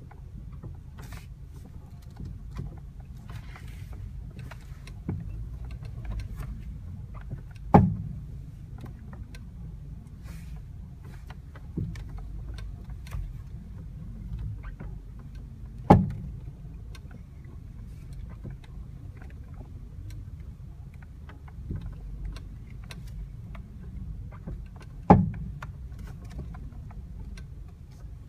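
Clunking from underneath the driver's side of a 2009 Honda Civic 1.8 (FK2) as the steering wheel is turned: three loud clunks about eight seconds apart, with lighter knocks between them, over a steady low rumble. The clunk is a fault in the steering or front suspension on that side.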